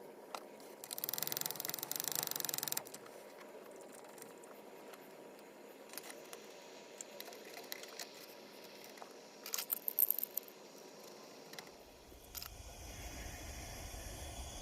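Faint small metallic clinks and rattles as the lantern's metal parts are handled, with a short hiss about a second in and a quick cluster of clinks near the middle.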